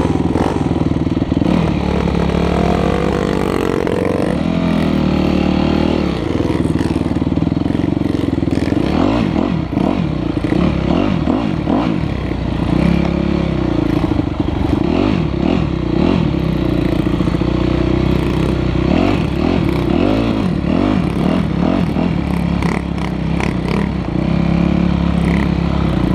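Dirt bike engine running and revving as the bike is ridden over rough ground, its pitch rising and falling again and again through the middle as the throttle is opened and closed, steadier near the start and end.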